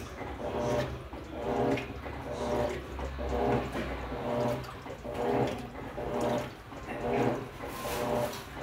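Electrolux LTE12 top-loading washing machine agitating its load: the motor whirs in regular strokes about once a second, with water sloshing in the tub.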